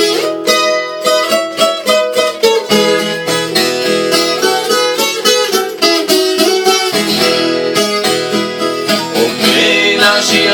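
Viola caipira playing an instrumental passage, a quick run of plucked notes over steady accompanying strings.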